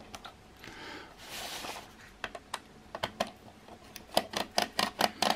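Small screwdriver working the screws out of a plastic VHS cassette shell: a string of light, irregular clicks and ticks of metal on plastic, coming faster in the second half, with a short hiss about a second in.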